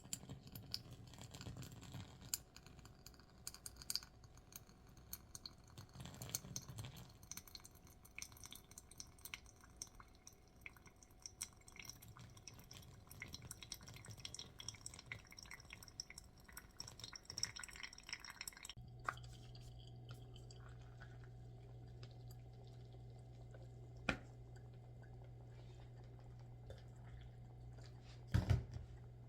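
Scattered small clicks and light clinks, then a steady low hum that starts about two-thirds of the way in, with a couple of knocks near the end.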